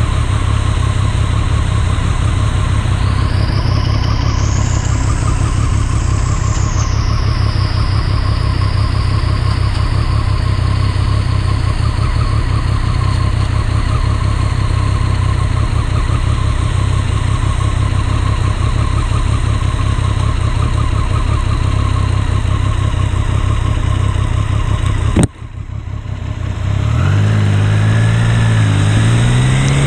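Motorcycle engine idling with a steady low thrum. About 25 seconds in there is a sudden click, then the engine pulls away: its note rises, dips at a gear change and rises again.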